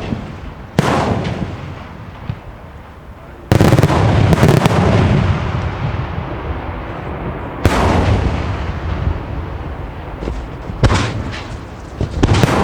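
Aerial fireworks shells bursting one after another, five or six loud booms a few seconds apart, each dying away in a rumble over a second or more; the loudest and longest comes about three and a half seconds in.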